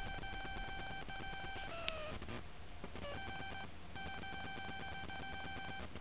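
An electronic beep at one steady pitch, sounding in long tones of up to two seconds with short breaks, over a steady low rumble; a brief falling squeak about two seconds in.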